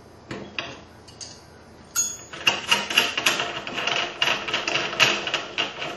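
Metal clicking and rattling as a full-length sizing die is loosened with an Allen wrench and unscrewed from the reloading press: a few separate clicks at first, then a quick, uneven run of clicks from about two seconds in.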